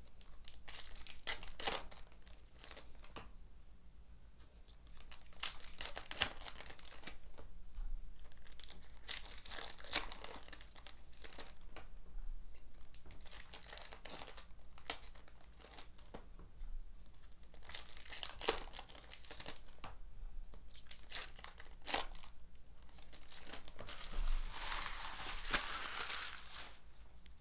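Foil wrappers of 2018 Upper Deck Goodwin Champions trading-card packs crinkling and tearing as they are ripped open by hand, in repeated bursts with sharp clicks.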